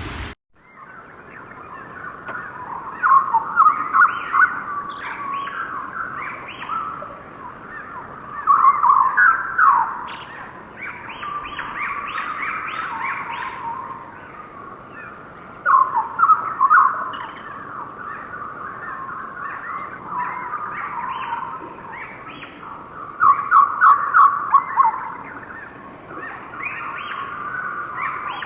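Birds calling: a steady background of chirps, with four louder bursts of rapid calls spaced about six to seven seconds apart.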